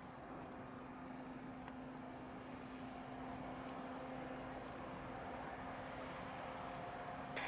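Faint steady low hum of an aircraft tow tractor pulling the Airbus Beluga XL, slowly growing louder. An insect in the grass chirps in quick, even pulses over it.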